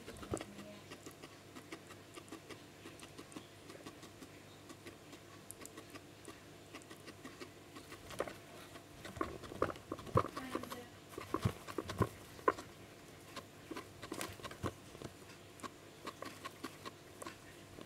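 Guinea pig chewing and rooting in hay: irregular small crunchy clicks and rustles, sparse at first and busier from about halfway through.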